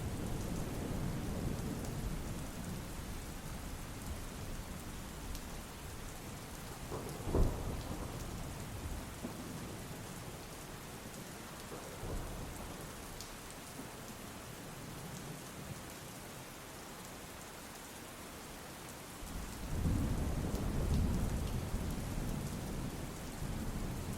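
Steady rain falling, with low rolls of thunder at the start and again from about three-quarters of the way through, and one sharper thunderclap about seven seconds in.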